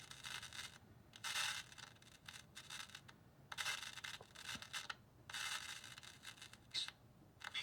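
Vintage tube radio's speaker giving short bursts of static and hiss, on and off, as the dial is turned between stations.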